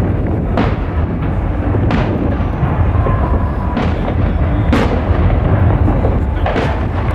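Fireworks exploding: a continuous heavy low rumble of booms, with about five sharper bangs cracking out over it every second or two.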